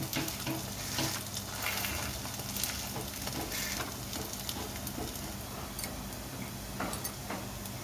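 Rice-batter pancake sizzling steadily in ghee in a metal kadai, with a metal spatula scraping and pushing against the pan in the first few seconds and once more near the end.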